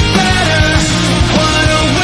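Post-grunge rock song in an instrumental passage: a lead guitar line with bent, gliding notes over bass and drums.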